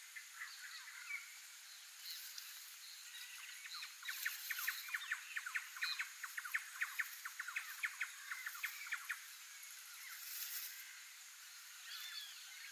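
Birds calling: scattered short chirps, then a rapid run of sharp repeated notes, about five a second, for several seconds in the middle.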